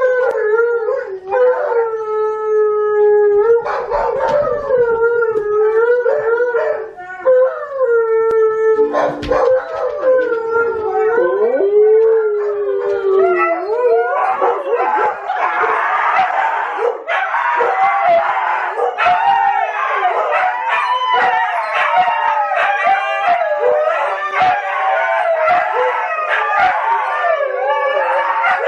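Siberian huskies howling: in the first half one long, wavering howl at a time, then from about halfway a chorus of many overlapping howls.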